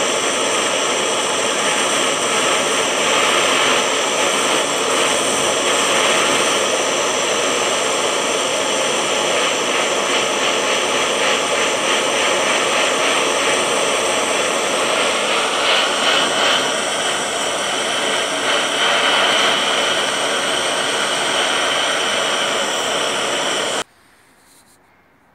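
Handheld gas torch flame rushing steadily as it heats silver in a crucible to melt it. The flame noise cuts off suddenly near the end.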